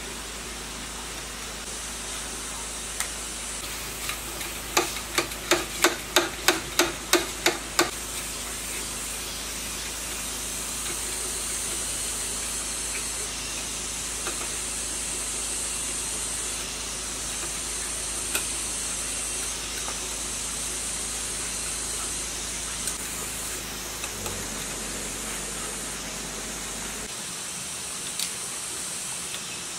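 A quick run of about ten sharp metallic knocks, roughly three a second, each with a short ring, over a steady hiss, followed by a few scattered light clicks of hand work on metal parts.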